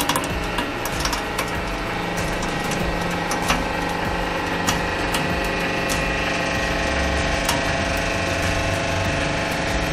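Hydraulic press running steadily under load, its pump motor giving a steady hum, as the ram squeezes a pile of soft gel-filled balls; a few sharp clicks come through now and then.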